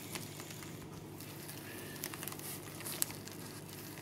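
Bamboo sushi rolling mat pressed and rolled by hand around a sushi roll, its slats giving faint clicks and rustles, over a steady low hum.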